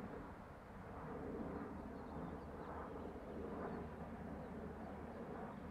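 Steady outdoor background noise: an even low hum with a few faint, short high chirps in the middle.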